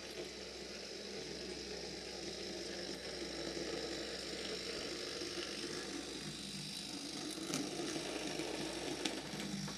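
Bachmann 00-scale Hong Kong tram model running on its track: the small electric motor and wheels give a steady whirring rattle that grows a little louder as the tram comes close, with a couple of sharp clicks near the end.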